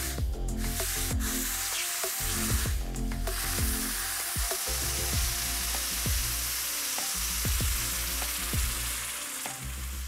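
A hot steel knife blade hissing and sizzling as it is quenched in a trough of water to harden it. The sizzle holds steady throughout.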